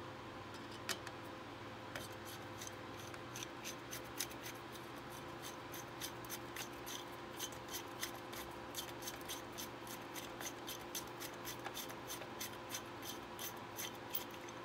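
A quick run of small sharp clicks or snips, about three a second, starting about two seconds in, from hands working small hardware, over a steady low electrical hum.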